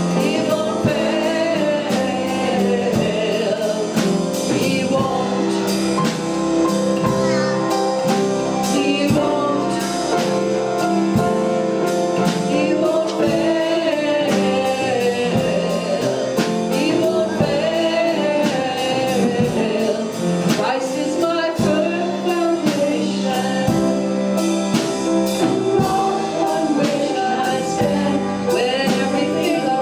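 Church worship band and singers performing a gospel-style worship song, with voices held over a steady drum beat.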